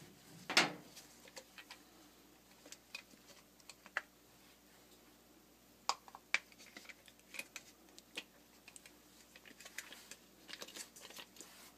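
Scattered light plastic clicks and taps from a Kenmore 70 series washer's upper agitator being handled and turned by hand, with one sharper knock about half a second in.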